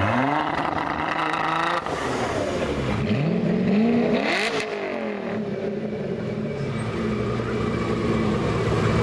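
Sports car engine revved hard twice: the pitch climbs steeply over the first two seconds and breaks off abruptly, then a second rev rises and drops back, settling into a steady idle for the last few seconds.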